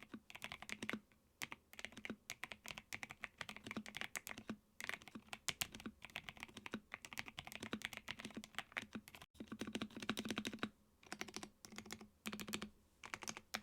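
Redragon 60% mechanical keyboard, now mostly fitted with Akko Bittersweet tactile switches, being typed on in quick runs of keystrokes with short pauses between them.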